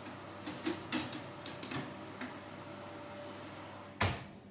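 A metal baking tray is slid onto an oven rack with a few light clicks and scrapes in the first two seconds. About four seconds in, the oven door shuts with one loud thud.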